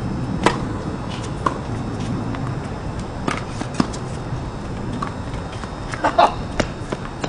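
Tennis rally on a hard court: a sharp hit of racket on ball from a serve about half a second in, then a string of hits and ball bounces every second or two, with a louder cluster of knocks around six seconds in, over a steady background hum.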